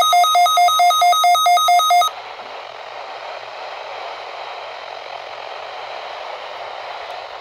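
Electronic alarm beeping, a pulsed tone about three times a second that cuts off abruptly about two seconds in. Steady radio static hiss follows.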